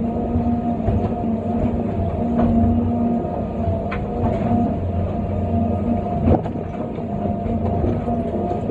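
John Deere 350D excavator heard from inside its cab: the diesel engine and hydraulics run under load with a steady hum and whine as the bucket digs and swings pit run. Several sharp clunks are heard, the loudest about six seconds in.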